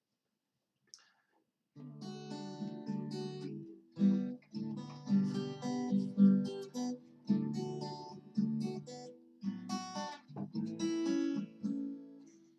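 Acoustic guitar strumming chords in a steady rhythm, starting about two seconds in: the instrumental introduction to a hymn.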